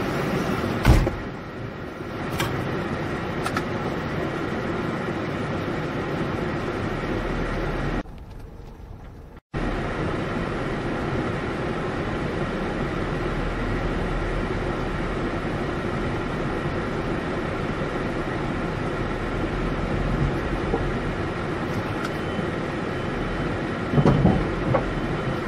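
Steady rushing noise of torrential rain heard from inside a moving car, with the vehicle running underneath. There is a single knock about a second in, and the sound drops away briefly about eight seconds in.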